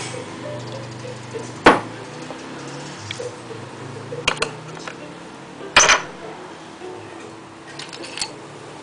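Glass clinking as a shot glass is handled against and over a tall glass full of ice cubes: several sharp clinks spaced a second or two apart, two of them louder than the rest.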